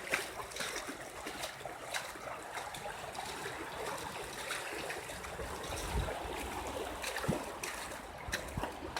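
Floodwater running down a street, a steady rush of water with scattered small splashes, and a couple of low thumps about six and seven seconds in.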